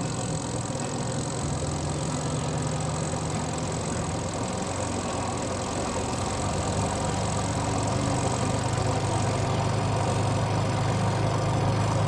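Twin-tub washing machine's spin-dryer motor spinning at speed: a steady low hum, getting slightly louder toward the end.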